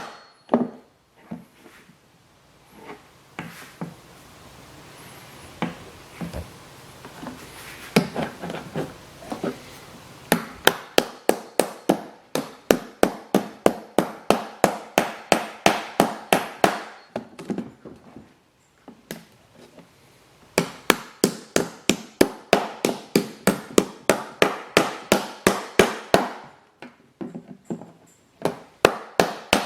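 Hammer tapping on the legs of split rivets, bending them over while a steel bucking bar backs up the rivet heads on a machinist's chest. Runs of quick light strikes, about three to four a second, broken by pauses.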